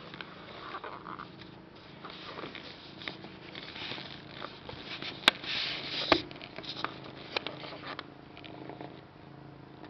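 Kitten purring steadily, with rustling and a few sharp clicks between about five and eight seconds in.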